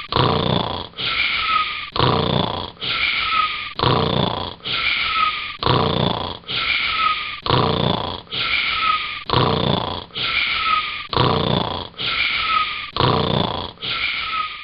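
Snoring in a very even rhythm, about one snore a second, each an in-breath with a thin whistling tone that falls slightly, followed by a breath out.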